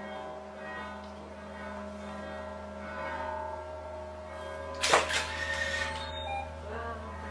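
A large round metal plate ringing with several steady overlapping tones over a low hum as a superball mallet is rubbed against its rim. About five seconds in there is a sudden loud scrape of the ball on the plate, followed briefly by higher squealing tones.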